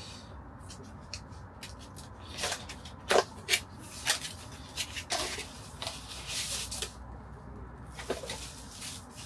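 Packaging of a portable LED table lamp being opened and unpacked by hand: a run of cardboard and plastic rustles and scrapes with a few sharp taps, the loudest two knocks about three seconds in.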